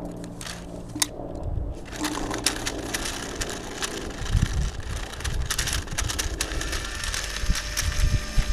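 Reusable rubber Reballs clattering through a Dye Rotor paintball loader as it feeds, with a dense run of irregular clicks and rattles from about two seconds in. The loader feeds them without a jam.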